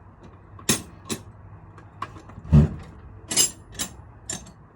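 Metal hand tools clinking and knocking as wrenches are handled, about six separate knocks with one heavier thud about halfway through.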